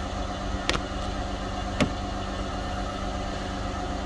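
A car engine idling steadily, with two sharp clicks about a second apart as a hand tool pries at a nail stuck in the tyre.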